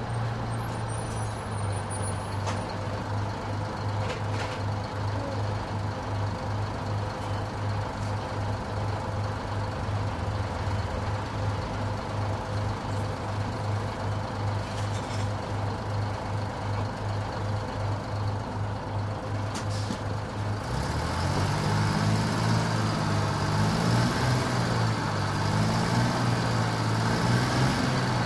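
1992 TMC RTS transit bus engine heard from on board: a steady low throbbing idle, then about twenty seconds in the bus pulls away, the engine pitch rising and wavering as it gets louder.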